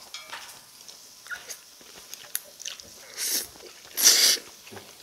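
A person slurping thin cold noodles in spicy gochujang sauce (yeolmu bibim-guksu) off chopsticks: two short slurps about a second apart, the second louder. A few faint clicks come before them.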